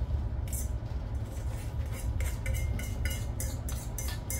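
A metal utensil scraping and clinking against a metal mixing bowl as mashed potatoes are scraped out into a foil pan: a quick, irregular run of clinks and scrapes starting about half a second in. A steady low hum runs underneath.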